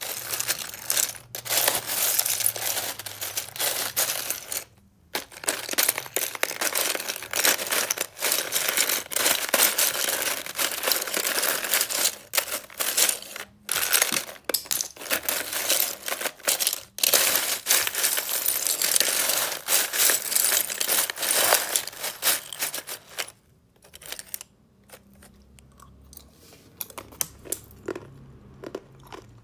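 Thin sheets of freezer frost ice being stirred and scraped with a metal utensil in a plastic tub: a dense, crisp crackling and clinking of ice shards, with a few brief breaks. It thins to sparse small clicks for the last few seconds.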